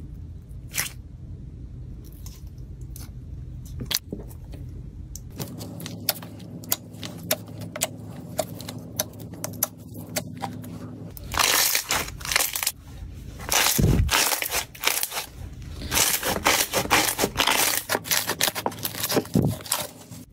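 Slime being squeezed and pulled by hand: scattered sticky clicks and small pops, then from about halfway through, louder bursts of stretching, tearing and crackling as the slime is pulled apart.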